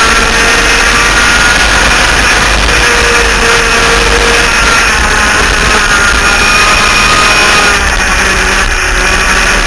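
Twin 100cc two-stroke engines of an enduro laydown kart running steadily at speed, heard onboard, with a slight brief drop in loudness near the end.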